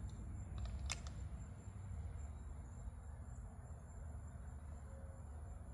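Outdoor wind rumble with a steady high-pitched whine running throughout, and a single sharp click about a second in.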